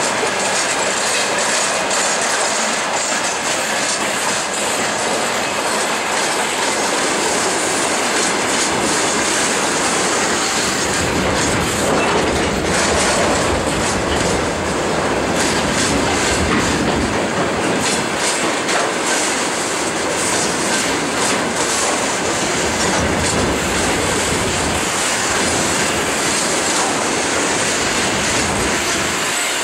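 Freight train wagons, covered wagons and then tank cars, rolling steadily past: wheel-on-rail rumble with a constant clickety-clack of wheels over rail joints.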